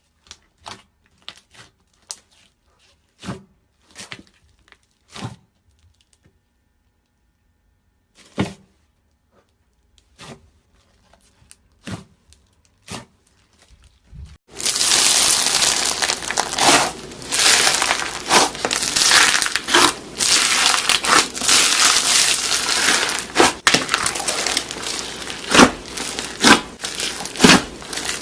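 Crunchy slime worked by hand: scattered single crackles and pops at first, then from about halfway a dense, continuous crunching and crackling.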